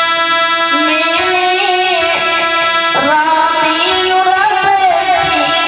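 A woman singing a devotional bhajan melody to a harmonium, coming in about a second after a held harmonium chord, with light hand-drum strokes underneath.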